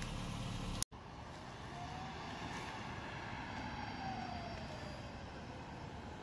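Toyota Avalon Hybrid rolling slowly across a parking lot, a steady low noise with a faint tone that rises and then falls in pitch.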